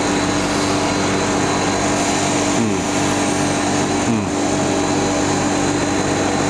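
ABS filament extrusion line running: a steady mechanical hum with a constant whine, and two brief falling-pitch sounds near the middle.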